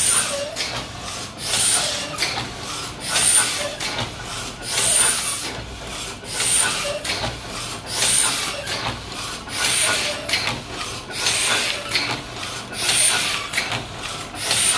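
A 1972 Heidelberg Original Platen (windmill) letterpress, set up for hot foil stamping, running steadily. Its cycle repeats as a rhythmic clatter and hiss, one stroke about every 1.6 seconds.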